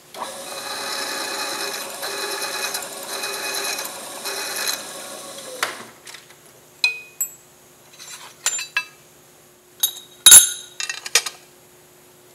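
A power tool runs steadily for about six seconds, wavering a little, then stops. After that come a series of sharp metallic clinks and knocks from metal parts being handled in a steel machine vise, the loudest a hard clank about ten seconds in.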